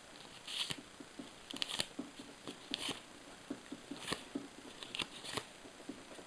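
Paper sticker cards in a stack being flipped through by hand: irregular light clicks and papery rustles as each card is slid over the next.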